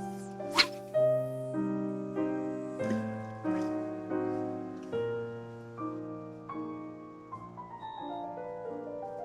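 Background piano music playing slow, sustained chords, with a run of falling notes past the middle. A brief sharp crack about half a second in stands out above the music.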